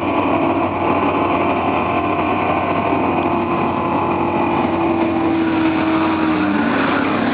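Vehicle engine noise running steadily at a constant loud level, with a steady pitched tone that drifts slightly lower after about six seconds.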